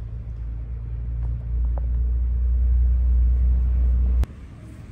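A deep, loud rumble that swells about a second and a half in and cuts off abruptly with a sharp click near the end.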